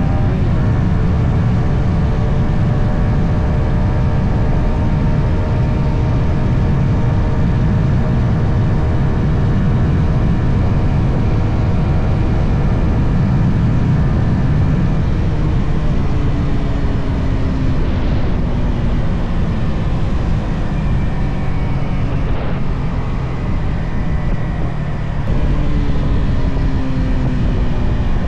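Yamaha XSR 155's stock single-cylinder engine and exhaust running on the move: steady cruising at first, the pitch falling away as the bike slows after the middle, then climbing again as it accelerates near the end.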